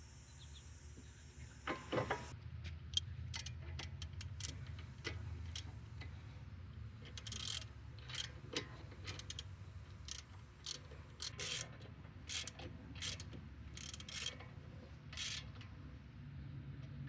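Hand tools at work on the wheel hub: a run of irregular metallic clicks with a few short ratchet-like strokes, over a steady low hum.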